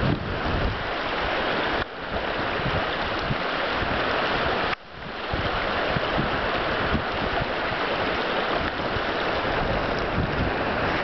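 Steady rushing of water from a swollen brook running over gravel, with surf on the beach, and wind buffeting the microphone. The sound dips briefly twice, about two and five seconds in.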